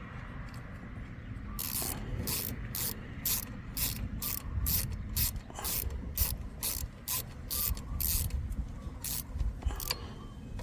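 Socket ratchet clicking steadily as it backs out the 6 mm hex pivot bolt of a motorcycle shift lever. It starts a little under two seconds in and runs at about two or three clicks a second.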